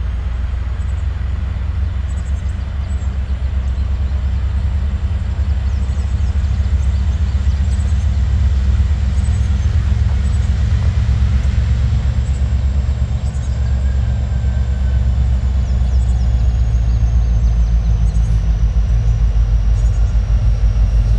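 Diesel freight train locomotives rumbling with a low, steady throb that grows gradually louder.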